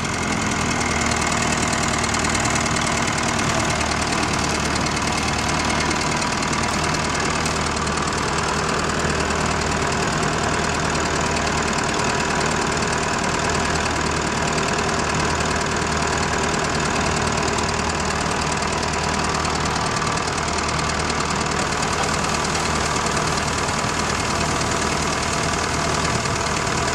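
Diesel engine of a 1963 Aktiv combine harvester running steadily with its machinery turning, while the grain tank is emptied to lighten the combine, which is stuck in soft ground. The sound is even and unchanging throughout.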